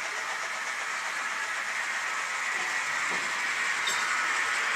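Märklin model trains running on the layout's track: a steady rolling whir that grows louder as the steam locomotive model comes closer, with a single click about four seconds in.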